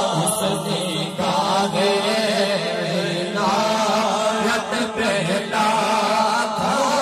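A group of men's voices chanting together in a Sufi zikr, repeating a phrase that shifts about every two seconds.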